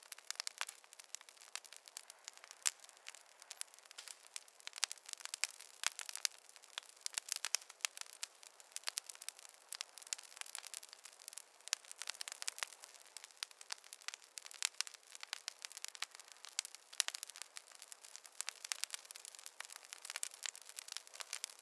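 Campfire crackling: a dense, irregular run of sharp pops and snaps from burning wood, with no low rumble beneath.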